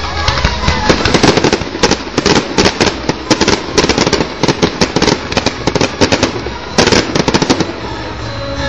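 Fireworks going off in rapid strings of bangs and crackle, many reports a second, easing off a little before the end.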